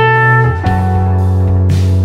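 Electric lead guitar from a 1965 Höfner Verythin semi-acoustic with staple pickups, played through a small 5-watt tube amp: two long sustained notes, the second coming in about half a second in. Under it runs a slow backing track with bass and drums.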